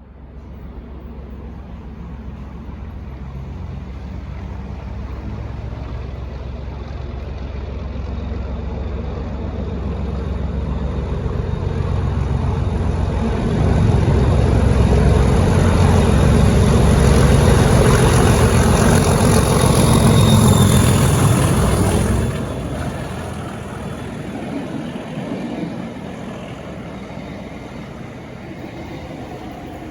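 Class 37 diesel locomotive's English Electric V12 engine working hard under load while hauling a train, growing steadily louder to a peak with a thin high whistle above it, then dropping sharply about three quarters of the way through.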